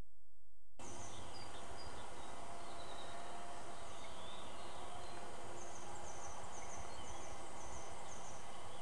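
Outdoor ambience beside a pond: a steady background hiss that starts abruptly about a second in. Over the last three seconds, faint high-pitched chirps come in a quick run of short, repeated notes.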